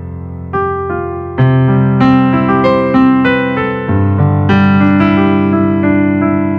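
Casio CT-X700 portable keyboard playing its Stage Piano preset tone: a slow passage of struck chords over held bass notes, each chord fading before the next.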